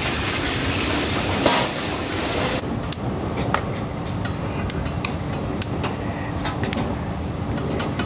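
Busy restaurant kitchen: a loud, steady hiss for the first two and a half seconds that cuts off suddenly, then scattered clinks and clatter of dishes and utensils over a low background hum.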